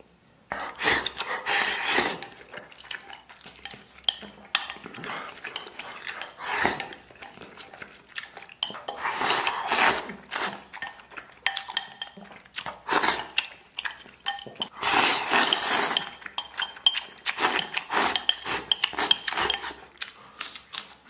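Wooden chopsticks clicking and scraping against a ceramic bowl as rice mixed with tofu and egg is shovelled into the mouth, with chewing between the bursts of clicks.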